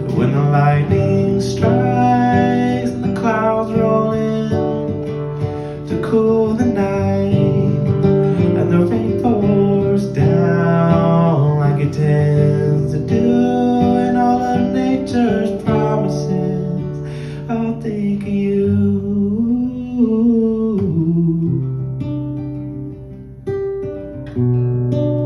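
Acoustic guitar strummed and picked in an instrumental passage of a live song, with chords changing every second or two.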